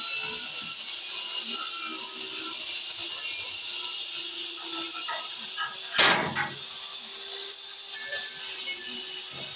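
Angle grinder with a wire brush wheel running against a rusty steel pipe, stripping the rust: a steady high whine with a scraping hiss. About six seconds in there is one sudden loud knock.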